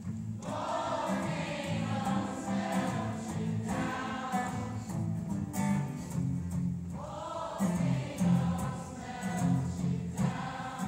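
A large crowd of amateur voices singing a chorus together in long phrases of a few seconds each, with short breaks between them, over a live acoustic guitar.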